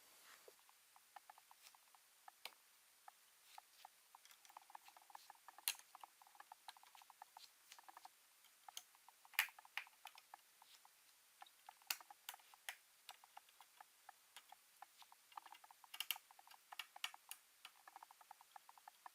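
Quick, irregular light clicks and scratching of small plastic and metal laptop parts being handled, with a few sharper, louder clicks among them.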